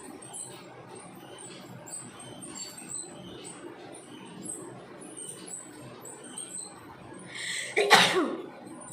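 A woman sneezes once near the end: a short building breath, then a sharp, loud burst whose pitch falls away.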